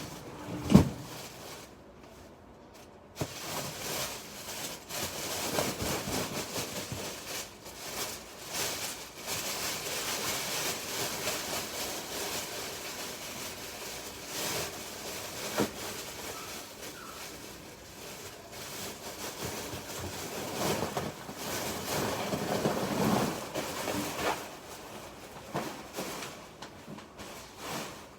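Electric paper shredder cutting through sheets of paper: after a single sharp knock, it starts suddenly about three seconds in, runs with uneven loudness as paper feeds through, and dies down near the end.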